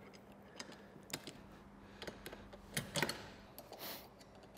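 A few sharp clicks and knocks of small metal hardware, two close together about three seconds in, then a short scrape near the end: nuts, bolts and crossbars being fitted into the rail channel on a roof-top tent's lid.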